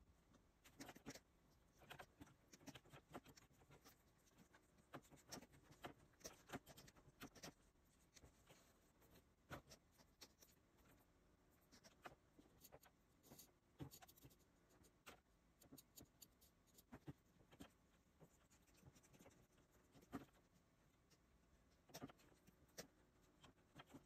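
Faint, irregular taps and strokes of a stylus on a Wacom Cintiq pen display's screen, mixed with scattered clicks of keyboard keys pressed for shortcuts.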